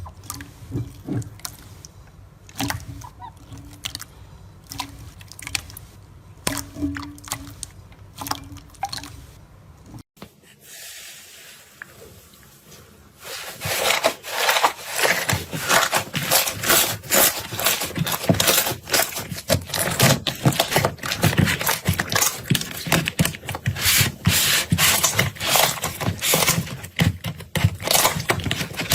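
Slime being squeezed and poked by hand, giving wet squishing and sharp popping clicks. About ten seconds in it breaks off to a soft hiss, then from about thirteen seconds a denser, louder run of crackling clicks follows.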